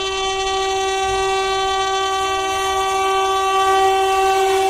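Horn of an approaching WAP7 electric locomotive held in one long steady blast, growing louder as the train nears.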